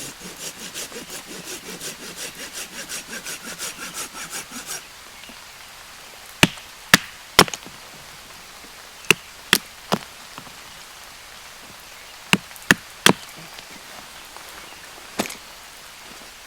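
Hand saw cutting through wood in quick, even strokes for about five seconds, then stopping; after that, sharp wooden knocks, mostly in groups of three, as firewood is cut and worked.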